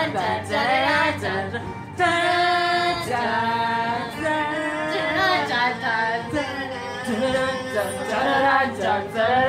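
Singing, led by a woman's voice, with some notes held for about a second: a sung intro tune.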